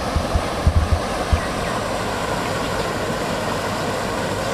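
Steady rushing and splashing of a pond's fountain aerator churning the water, with a few low thumps in the first second and a half.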